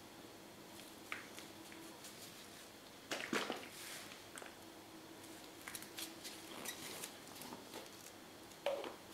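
Faint handling noises while acrylic paint is squeezed from a plastic bottle onto a board: soft squishes and small taps, the loudest about three seconds in and again near the end.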